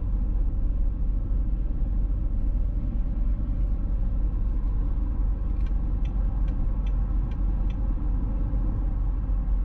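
2005 Jaguar S-Type 3.0 V6 cruising at highway speed: a steady low drone of engine and road noise. A little past halfway, a run of about six light ticks, two or three a second.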